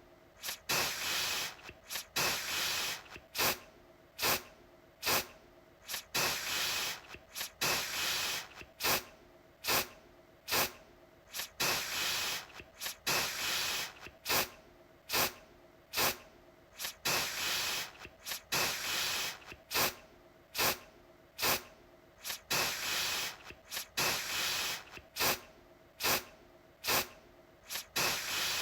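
Aerosol deodorant can spraying in repeated bursts of hiss: very short spurts mixed with longer sprays of up to about a second, one or two a second.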